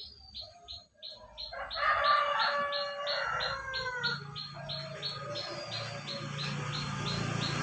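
Canary giving short, high 'cuit cuit' chirps over and over, about three a second. About a second and a half in, a louder, lower drawn-out call with several pitched tones joins for a couple of seconds, and a low hum comes in after it.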